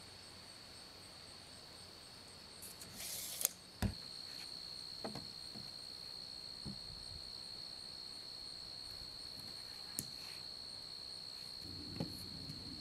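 Field insects trill steadily at a high pitch. A short rustle comes about three seconds in, and a few scattered light knocks come as wooden framing boards are handled.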